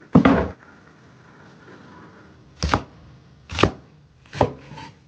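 A knife chopping on a cutting board in single strokes: one loud chop at the start, then three more about a second apart.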